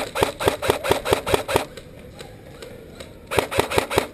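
Airsoft rifle firing two quick strings of shots, about six a second. The first string runs about ten shots and the second, about three seconds in, about five.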